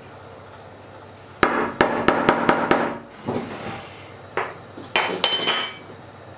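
Metal spoon knocked sharply about six times in quick succession against a small stainless-steel saucepan, then the pan and spoon set down on a wooden chopping board, ending in a clatter with a brief metallic ring.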